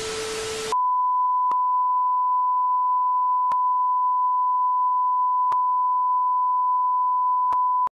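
Television static hiss with a faint hum, cutting off less than a second in to a steady, high-pitched pure test tone of the kind that goes with colour bars. A faint tick sounds every two seconds.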